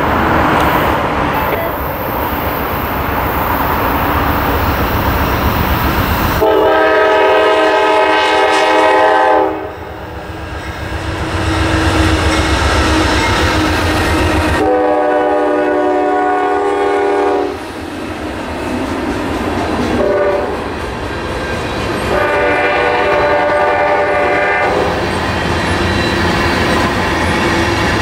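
Norfolk Southern freight led by GE Dash 9-40CW diesel locomotives passing close by, engines rumbling, sounding its air horn long, long, short, long: the grade-crossing signal. Near the end the tank cars roll past on the rails.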